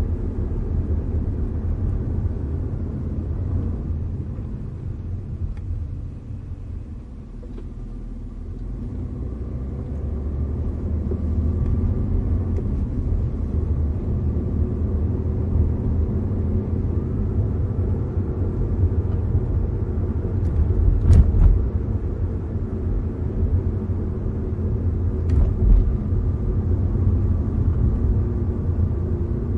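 Interior sound of an Audi A4 on the move: a steady low rumble of road and engine noise. It eases off for a few seconds about six seconds in, then returns. A couple of brief sharp knocks come about two-thirds through and again a few seconds later.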